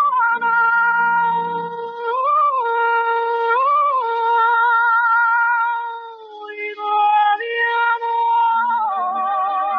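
A woman singing long, high, wordless held notes with a wide vibrato, sliding up and back down between notes. The voice drops back briefly about six seconds in, then carries on.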